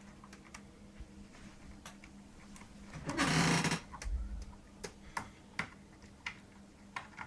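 Hands working cables inside a PC case: scattered light clicks and taps, and about three seconds in, a short, rapid ratcheting rasp of a cable tie being zipped tight.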